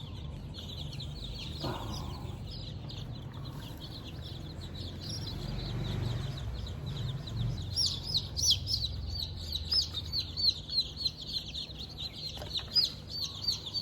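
A brood of baby chicks peeping: many short, high, falling cheeps that grow louder and come thick and fast about halfway through, over a low steady hum.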